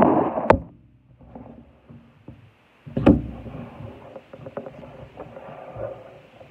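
Handling noise from a handheld phone camera being moved and set against a wooden surface: two sharp knocks, about half a second and three seconds in, with small clicks and rustles between them.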